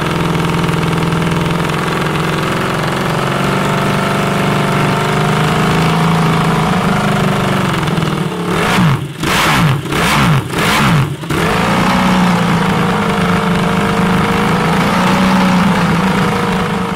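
Ducati Desmosedici MotoGP race bike's desmodromic V4 engine idling on a paddock stand, with four quick throttle blips about halfway through before it settles back to an idle that wavers slightly.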